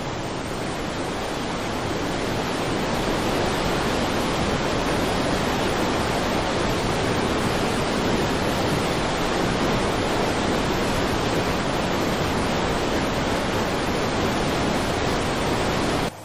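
Muddy floodwater rushing through rocky rapids: a loud, steady rush of water that cuts off abruptly near the end.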